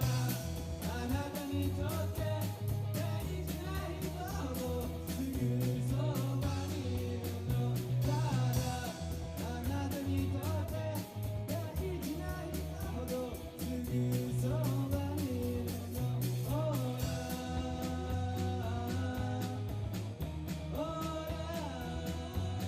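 Live rock band playing a song: a stepping bass line under steady drums and guitar, with a melody line that fits singing.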